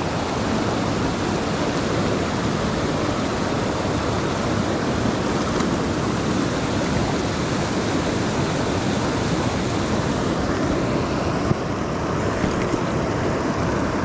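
Steady rushing of a small stream's flowing water, an even wash of noise with a couple of small knocks near the end.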